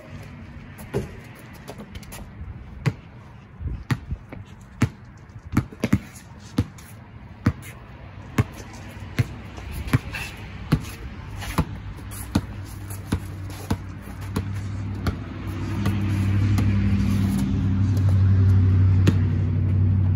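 A basketball dribbled on a concrete driveway, sharp bounces slightly more than once a second. From about two-thirds of the way in, a low steady engine hum rises and becomes the loudest sound near the end.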